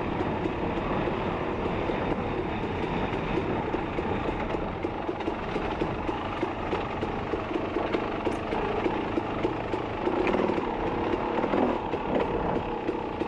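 Off-road dirt bike engine running on a rough trail, its revs rising and falling as the rider works the throttle, with a burst of revving a little after ten seconds in.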